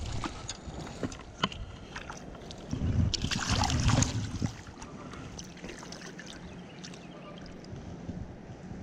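Shallow creek water splashing and trickling around a rubber-mesh landing net handled in the water, with small scattered knocks, and a louder stretch of splashing about three seconds in.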